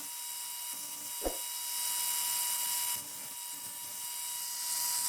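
Hand file scraping across the teeth of a wood saw in two long strokes, with a single knock about a second in.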